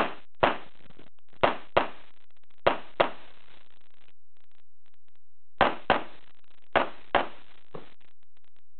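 Handgun shots fired mostly as quick double taps, pairs about a third of a second apart: a single shot just in, then two pairs, a pause of about two and a half seconds, two more pairs, and a fainter shot near the end.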